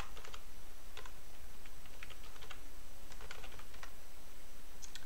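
Typing on a computer keyboard: short runs of keystrokes separated by brief pauses.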